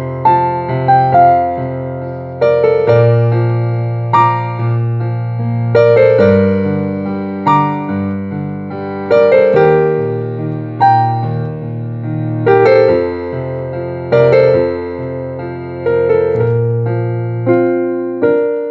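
Slow piano piece played on a digital piano: a melody over held bass notes and chords, with new notes struck every second or two and each ringing down. The last chord dies away near the end.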